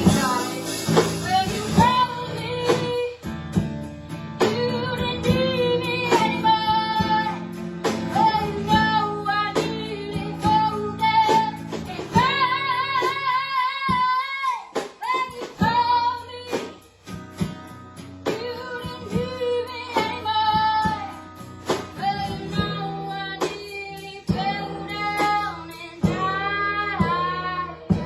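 A woman singing a slow, held melody with vibrato, accompanied by guitar.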